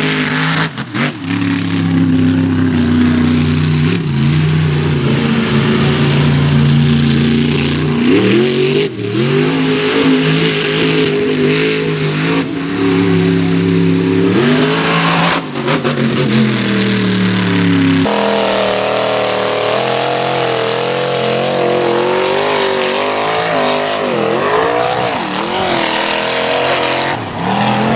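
Mega truck engines revving hard through a mud pit, the engine note repeatedly climbing and dropping back. About two-thirds of the way through, a higher, wavering engine note takes over.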